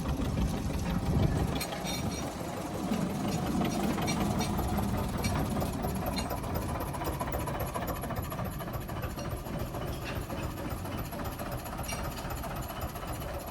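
Small diesel engine of a narrow-gauge locomotive running steadily, a low rumble with a rattle of clicks over it.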